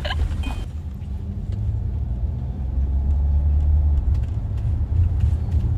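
Steady low rumble of a car on the move, heard from inside the cabin, with no voices over it.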